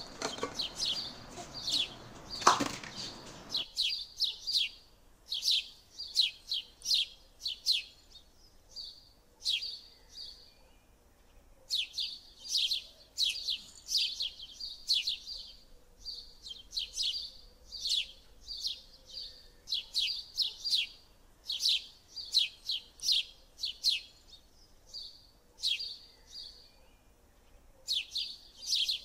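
Small birds chirping in short runs of quick, high chirps, one run after another. For the first few seconds a spoon stirring masala in an aluminium pot scrapes underneath, with one knock about two and a half seconds in.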